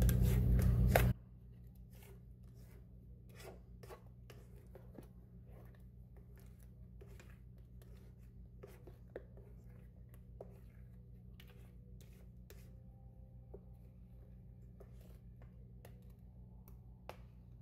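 A silicone spatula faintly scraping and tapping in a stainless steel mixing bowl, scraping cream cheese batter off the bottom, in scattered short strokes. A louder sound cuts off abruptly about a second in.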